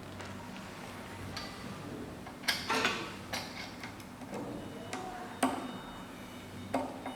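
Scattered small metal clicks and knocks as the decoder and cutter are taken out of and fitted into an SEC-E9 key cutting machine, about six in all; the sharpest come about two and a half and five and a half seconds in.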